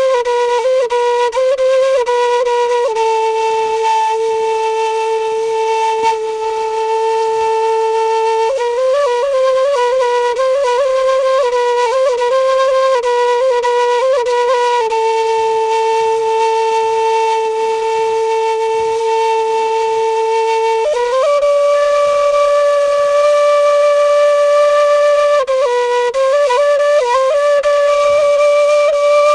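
Solo end-blown wooden flute playing a slow traditional melody. Long held notes are joined by quick ornamented runs, and the melody climbs to a higher held note about two-thirds of the way through.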